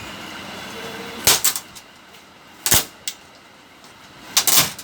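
A handful of sharp clicks and knocks, hard objects striking or snapping against each other: a quick triple about a second in, a single knock in the middle, and a pair near the end.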